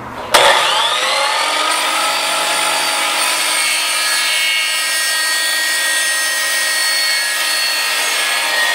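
DeWalt electric miter saw switched on: its motor and blade spin up with a rising whine a moment in, then run steadily at full speed with a high whine, while a 3-inch PVC 90-degree elbow is cut in half.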